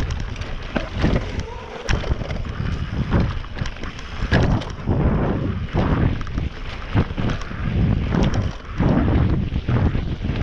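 Wind buffeting the action camera's microphone as a mountain bike, a 2019 Specialized Enduro S-Works, runs fast down a dirt trail, with its tyres rolling over the dirt and frequent short knocks and rattles from the bike over bumps.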